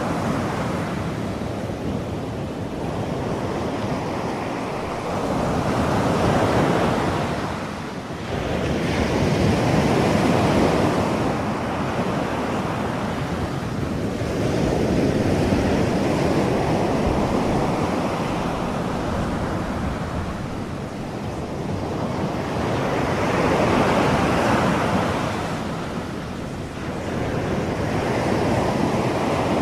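Ocean surf sound bed: a continuous rushing of waves that swells and ebbs in slow surges every several seconds.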